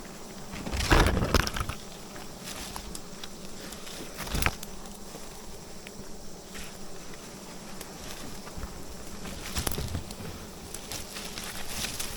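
A swarm of wild bees buzzing steadily around their nest. Louder rustling bursts come about a second in and near the end, with a sharp knock about four and a half seconds in.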